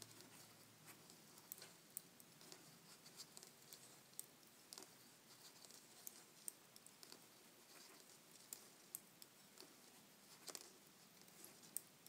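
Faint, irregular soft clicks and rustles of metal Addi Lace knitting needles and yarn as stitches are purled by hand.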